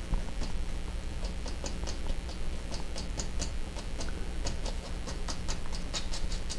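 Fan brush bristles tapping oil paint onto a stretched canvas in short, irregular taps, about three or four a second, laying in dark evergreen trees.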